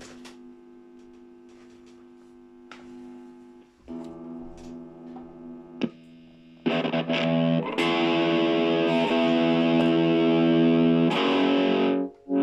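Gibson Les Paul Custom electric guitar played through a distorted amp while being tested after rewiring: chords left to ring. It is quiet for the first few seconds, then about two-thirds in a chord comes in much louder and rings for several seconds, with a brief gap before another loud chord near the end.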